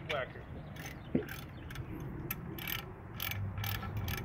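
Hand ratchet wrench clicking in repeated short strokes as bolts are turned into a coilover strut's bracket, about three clicks a second.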